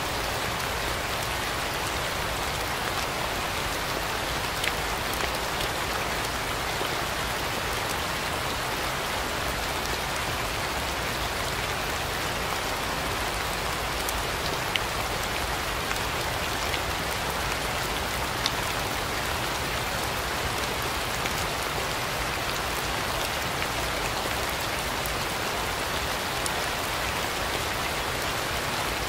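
Steady rain falling, an even, unbroken hiss with a few sharper single drop ticks now and then.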